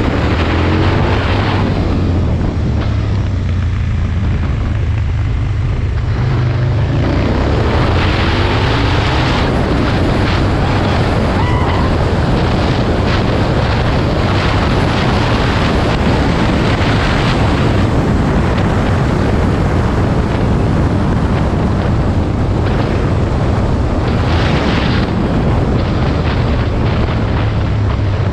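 Aprilia Tuono 1000's V-twin engine running under way, with heavy wind noise across the microphone. The engine note rises just after the start and again around seven to nine seconds in as the bike accelerates.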